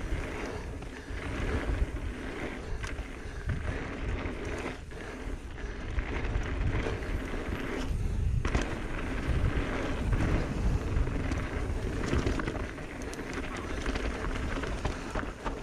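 Mountain bike rolling fast down a dirt singletrack: tyres rumbling and crunching over the trail, with frequent knocks and rattles from the bike over bumps.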